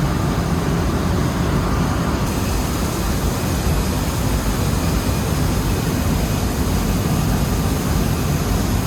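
Rice mill machinery running: a loud, steady, unbroken mechanical noise with no separate knocks or changes.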